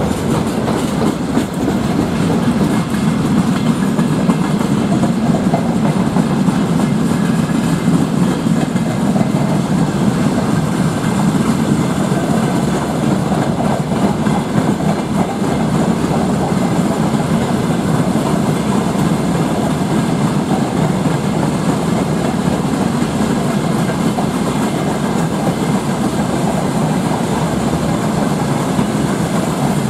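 Freight train wagons, open gondola cars and a boxcar, rolling past at close range. Their wheels and bogies make a loud, steady rumble and rattle on the rails throughout.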